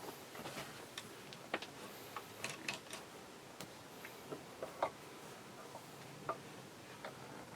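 Irregular light clicks and taps of small hard parts being handled, a dozen or so scattered unevenly with no steady rhythm.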